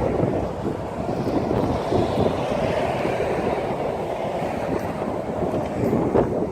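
Windstorm gusts buffeting the microphone: a loud, rough, low rushing that swells and eases, with one short knock about six seconds in.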